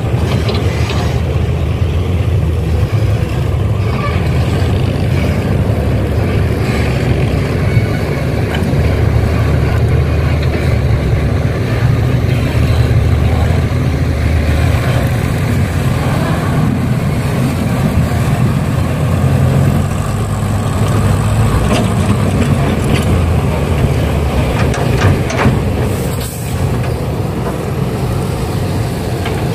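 Heavy diesel engines of an excavator and dump trucks running steadily at a loading site, a low continuous rumble. A few short sharp noises come near the end.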